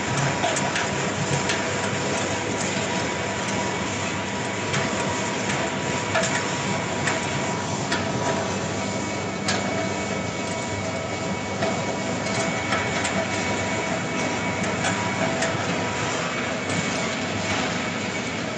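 Wood pellet mill running: a steady mechanical drone with a few steady hum tones, and scattered sharp ticks now and then.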